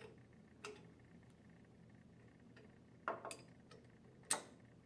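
Faint metallic clinks of an open-end wrench on the head cap screws of an internal gear pump as they are tightened: a few scattered clicks, a short cluster about three seconds in and the sharpest one just after four seconds.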